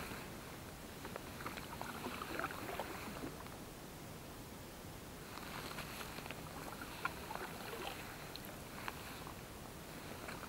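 Kayak paddle strokes in calm lake water: the blades dip and splash, and water drips and trickles off them. The strokes come in two spells with a short lull between.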